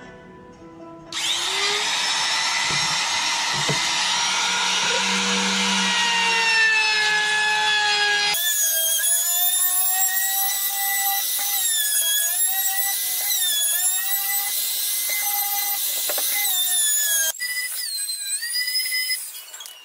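Handheld trim router running and cutting into a wooden panel: a high motor whine over a loud hiss of cutting. It starts about a second in, and its pitch dips again and again as the bit works along the wood. It changes abruptly about eight seconds in, stops briefly near the end, and runs once more for a moment.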